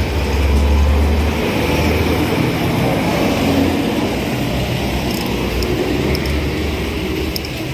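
Steady rumbling noise of road traffic, heaviest in the first second and a half.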